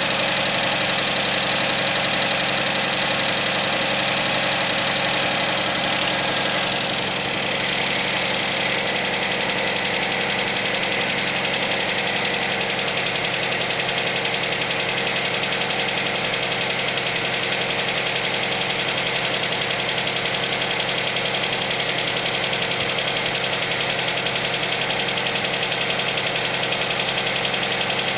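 Suzuki Vitara engine running cold with a knock. The sound gets a little quieter and duller about nine seconds in, then stays steady.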